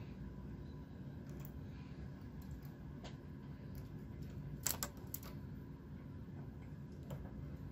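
Light, irregular metal clicks of a hand transfer tool picking stitches off and onto the latch needles of a Brother knitting machine, moving edge stitches to decrease. A cluster of sharper clicks comes about halfway through, over a low steady hum.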